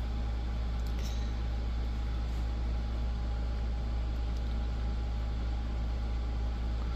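Steady low hum with a hiss over it, from something running in a small room, with a couple of faint clicks about a second in.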